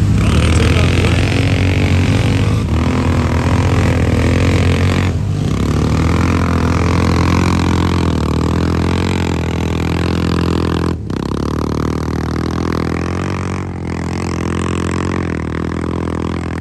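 ATV engines, a Honda and a Can-Am, running steadily under throttle through a mud race, with a few abrupt cuts where the sound drops out for an instant.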